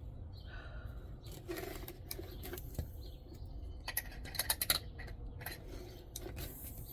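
Small metallic clicks and taps of a cotter pin against the screen door's metal fitting as it is worked toward the hole, with a quick run of clicks about four and a half seconds in.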